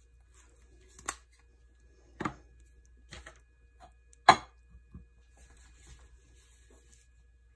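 Kitchen items being handled by hand: several separate sharp clicks and knocks about a second apart, the loudest a little past the middle.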